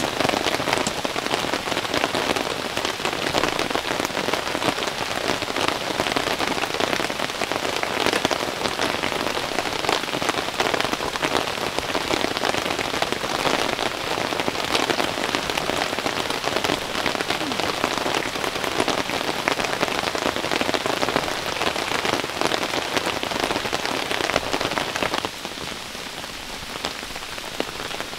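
Steady rain falling on the tarp and air tent overhead, a dense patter of drops. About three seconds before the end it turns quieter, as rain falling in the open forest.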